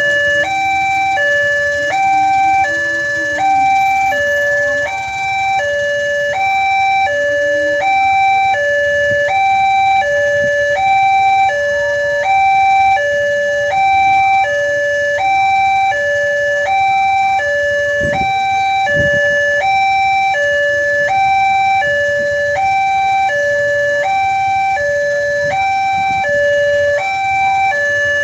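Indonesian railway level-crossing warning alarm sounding: an electronic two-note tone alternating high and low about every half second, repeating without a break, the signal that a train is approaching and the barrier is closing.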